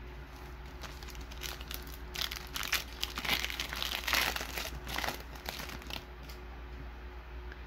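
A Panini Diamond Kings trading card pack wrapper being torn open and crinkled by hand, crackling irregularly from about a second and a half in for about four seconds.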